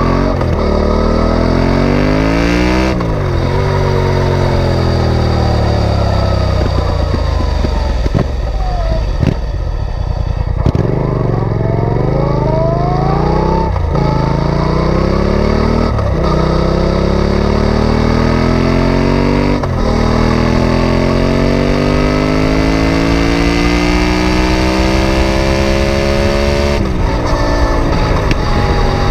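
Yamaha Tracer 700's 689 cc parallel-twin engine heard through a Mivv Speed Edge aftermarket silencer while riding. The revs climb and fall with several brief gear-change breaks, then make one long, steady pull up in pitch in the later half.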